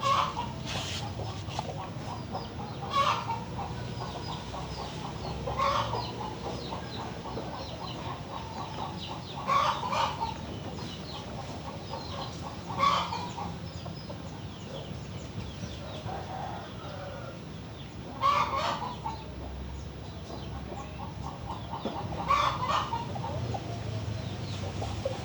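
Chickens clucking, with a short loud call every few seconds over faint high chirping in the background.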